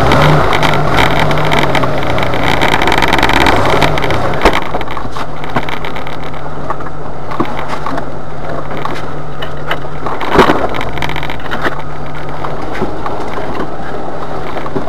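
Jeep Wrangler engine running steadily under load as it crawls up a rough dirt trail, with scattered knocks and rattles from the body over bumps. It is louder and rougher for the first four seconds, and there is a sharp knock a little after ten seconds in.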